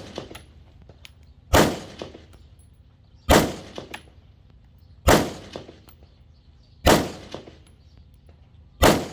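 Five rifle shots from a scoped AR-style rifle, fired at a steady pace about every two seconds. Each shot is followed about half a second later by a faint clang of the bullet striking a steel target downrange.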